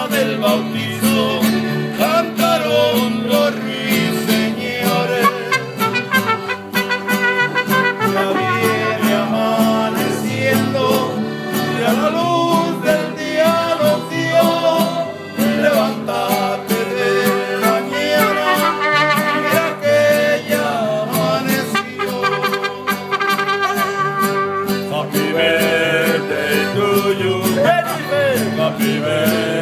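Mariachi band playing live: strummed guitars and a guitarrón bass under a sung melody.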